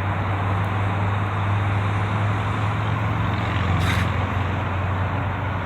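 Steady outdoor noise of wind and distant road traffic, with a constant low hum beneath it.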